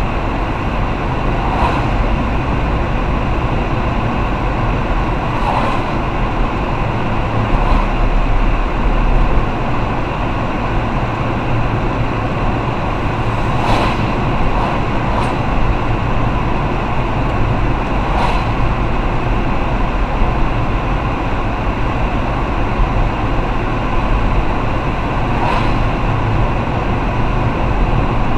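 Cabin noise of a moving car: a steady low rumble of engine and tyres on a wet road, with a few short clicks or knocks scattered through.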